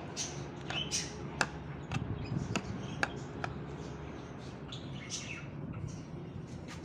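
A metal spoon clicks and scrapes against plastic tubs and feed dishes as grated boiled egg is stirred and portioned out, with a few sharp clicks in the first half. Small cage birds chirp in the background.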